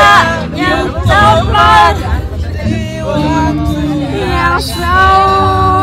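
A group of young men and women singing along together over music, with a long held note near the end.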